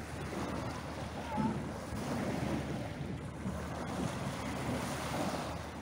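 Small waves breaking and washing onto a pebble beach, with wind rumbling on the microphone.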